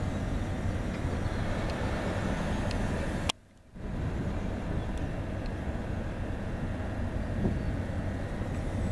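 Low, steady rumble of a distant approaching freight train's diesel locomotives, mixed with wind on the microphone. The sound cuts out almost completely for about half a second a third of the way in, after a sharp click.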